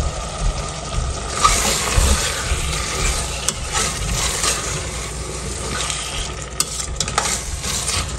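Metal spoon stirring eggplant curry with freshly added yogurt in a stainless steel pot, the sauce sizzling in the hot oil, with scrapes and a few sharp clicks of the spoon against the pot, most of them near the end.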